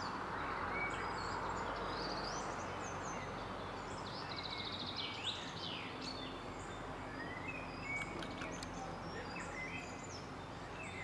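Several songbirds singing and calling in woodland, short chirps and whistled glides with a rapid trill about four seconds in, over a steady background hiss.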